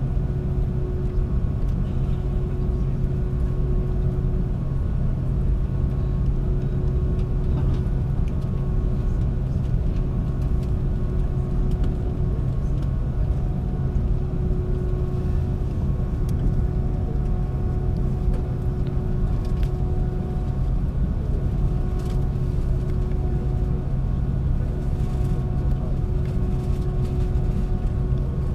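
Steady low cabin drone of an Airbus A330-200 standing with its engines stopped, the cabin ventilation running, with a few faint steady tones above it.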